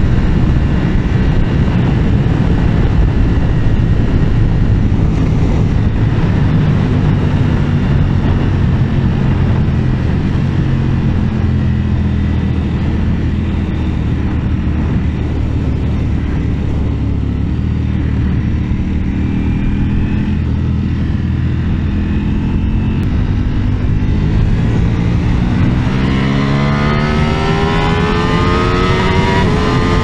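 Ducati Panigale V4S's 1103 cc V4 engine running hard at motorway speed, heard from the rider's seat under wind rush. The engine note dips a little midway, then rises steeply under hard acceleration in the last few seconds.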